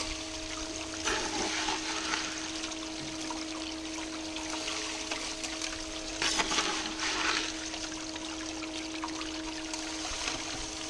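Water running down a gold sluice, a steady rushing wash with a steady hum beneath it. Louder splashing surges come about a second in and again around six to seven seconds.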